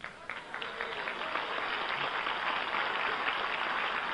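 Lecture audience applauding, starting with a few scattered claps and quickly filling in to steady clapping.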